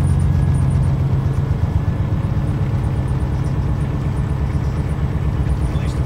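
GE Dash 9 locomotive's V16 diesel engine running steadily under load, heard inside the cab as a loud, low drone while the locomotive works in power against applied brakes.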